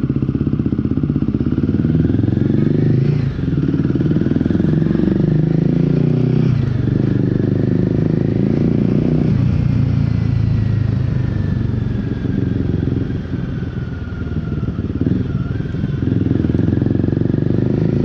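Royal Enfield Guerrilla 450's single-cylinder engine running under way through an aftermarket Black Widow exhaust. There are short breaks in the engine note about 3, 6.5 and 9 seconds in, then a brief drop in level about 13 seconds in.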